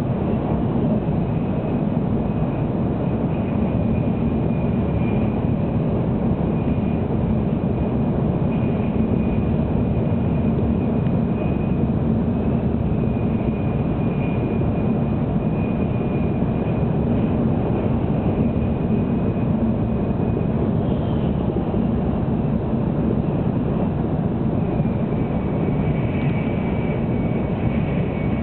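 Cabin noise inside a 700 series Shinkansen car running at speed: a steady low rumble with a faint high whine above it that shifts down slightly in pitch near the end.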